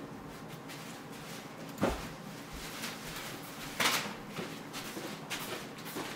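Two sharp knocks about two seconds apart, the first a dull thump and the second a brighter crack, with a few fainter knocks over quiet room tone.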